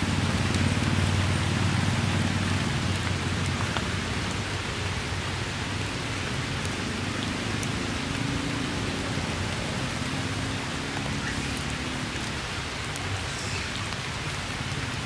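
Steady rain falling, with scattered close drop ticks. A low hum underneath fades out over the first couple of seconds.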